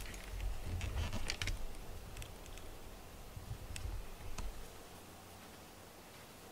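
Scattered soft clicks and a low rumble from a handheld camera being moved and handled, settling to quiet room tone about four and a half seconds in.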